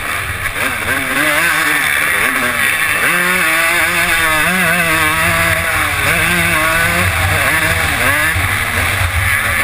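Suzuki RM250 single-cylinder two-stroke motocross engine under race load, its pitch rising and falling again and again as the throttle is worked through corners and straights.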